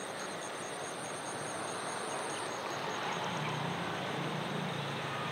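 Steady outdoor traffic noise, with a low vehicle engine hum coming in about halfway through.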